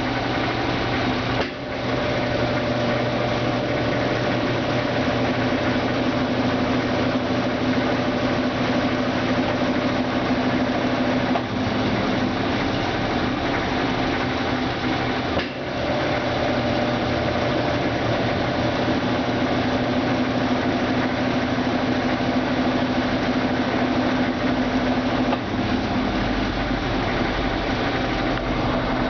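Brastemp Ative BWL11AR top-load washing machine running with a steady motor hum and whine. The sound briefly dips about a second and a half in and again about halfway through.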